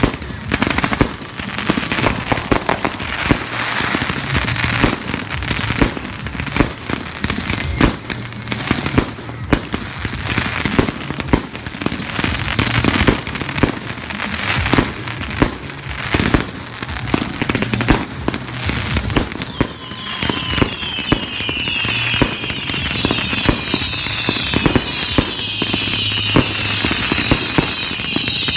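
Fireworks going off in a rapid string of bangs and crackles. About two-thirds of the way in, many overlapping whistles start up, each falling in pitch, over the bangs.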